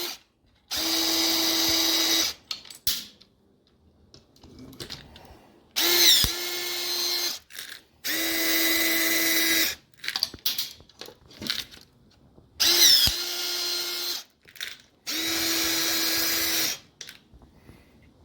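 Electric power drill run in about five bursts of one to two seconds, some starting with a quick rise in pitch as it spins up, then holding a steady whine, with short pauses and small clicks between bursts.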